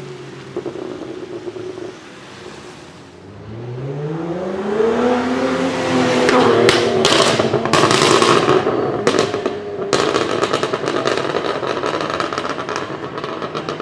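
BMW 1M's twin-turbo straight-six revving up from a low idle about three seconds in. From about six seconds, once the revs peak, the tuned exhaust lets out a rapid string of sharp backfire pops and crackles that grows denser toward the end.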